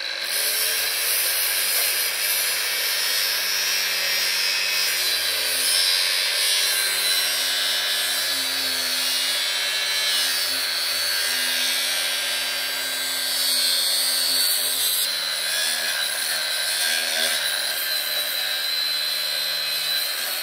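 Electric angle grinder with a cutting disc cutting into the steel casing of a safe: a loud, steady grinding with a high motor whine. The whine shifts in pitch about fifteen seconds in.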